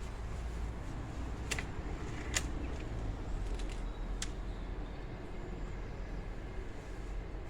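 A low steady rumble with a few light clicks, about a second and a half, two and a half and four seconds in.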